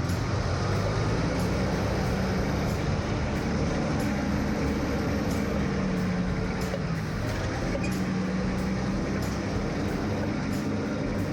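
A 4x4's engine running steadily at low revs while crawling up rock steps, its pitch drifting a little up and down, with light scattered clicks.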